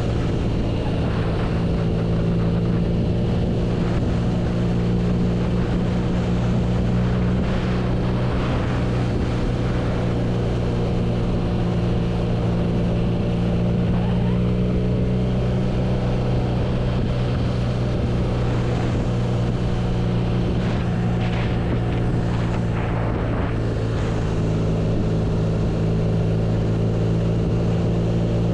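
BMW R nineT's 1170 cc air/oil-cooled boxer twin running at a steady cruise, its pitch holding level throughout.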